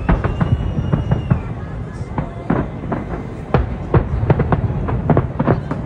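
Large fireworks display: rapid overlapping bangs of shells bursting, several a second, over a continuous low rumble.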